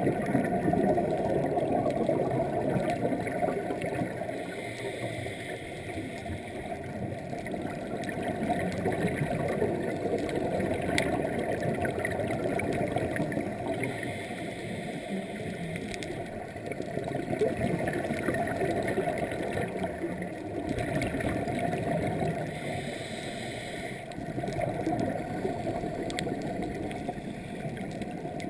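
Underwater scuba breathing through a regulator: long swells of bubbling exhalation, broken every eight or nine seconds by a short hiss of inhalation.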